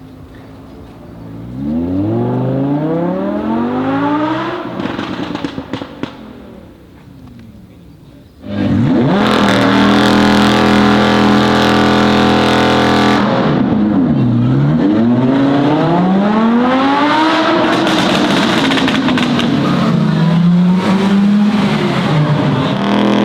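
Audi R8 V10 Performance's V10 engine through an aftermarket Capristo exhaust. It starts at a steady idle, revs climb and fall back with a cluster of sharp crackles and pops on the overrun, then comes a very loud run at a steady high pitch for about five seconds that starts abruptly. After that the revs drop and rise again several times, with more crackles.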